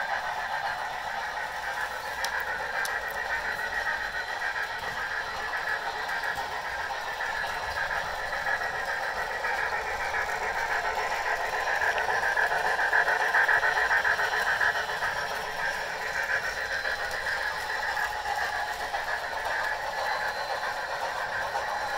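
Two sound-equipped model steam locomotives, a Bachmann GS4 and a Bachmann Niagara, running steadily: the steam sound from their DCC sound decoders through small onboard speakers, mixed with the rattle of wheels rolling on the track. It grows louder for a couple of seconds about halfway through, as one passes close.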